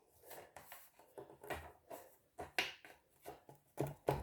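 Hands handling a speaker's grille cover: soft rubbing and small irregular clicks, with a few sharper taps in the second half as the cover is pressed onto its clips.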